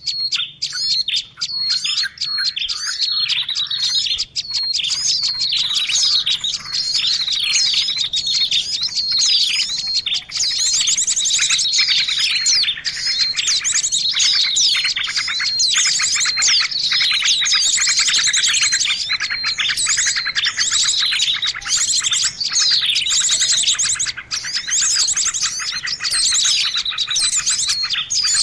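Birdsong used as a lure call for attracting birds: a dense, continuous stream of rapid high chirps and trills with no breaks.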